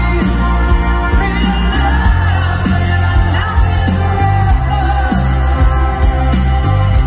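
Live pop ballad played loud over a concert PA: a male lead singer's voice over the band, with heavy bass, heard from within the audience.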